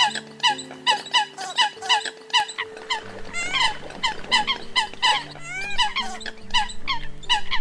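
Eurasian coots calling: a fast run of short, sharp calls, about three a second, with more birds' calls overlapping from about three seconds in. A low music bed sits underneath.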